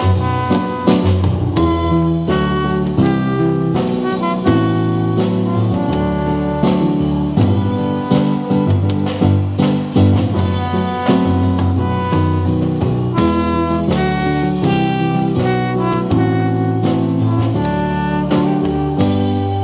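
Trombone, keyboard and drum kit playing an instrumental piece together: the trombone carries the melody over steadily moving low notes and a drum beat.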